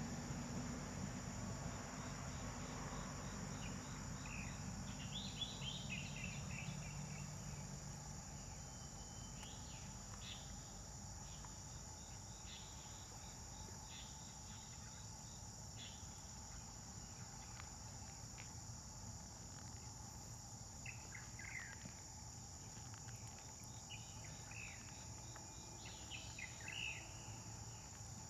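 Faint outdoor ambience: a steady high insect drone with scattered short bird chirps. A low rumble underneath fades out after the first several seconds.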